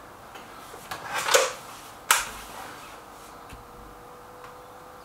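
Break-barrel air rifle being cocked and reloaded between shots. A short rasping rush comes about a second in as the barrel is broken open, then a single sharp clack at about two seconds as the barrel is snapped shut.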